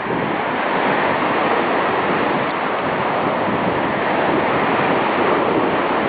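Waves on Lake Ontario breaking on the beach in strong wind, with wind buffeting the microphone: a loud, steady, unbroken rush of noise.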